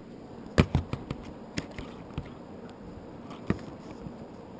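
Hands handling and adjusting a small camera close to its microphone: a string of irregular knocks and clicks, the loudest a cluster about half a second in and a single knock at about three and a half seconds.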